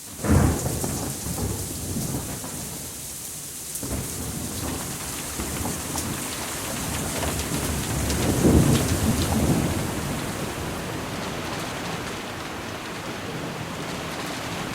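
Steady rain with rolls of thunder: a sudden low rumble right at the start, then a louder rumble swelling and fading about eight to nine and a half seconds in.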